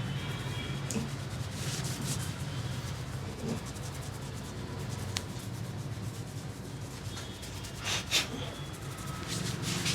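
Hands rubbing over a person's hair and scalp in a head massage, in several short bursts, the loudest about eight seconds in, over a steady low hum.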